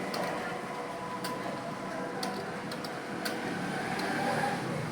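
Computer keyboard keys clicking as someone types, the keystrokes coming at an uneven pace over a steady background hum.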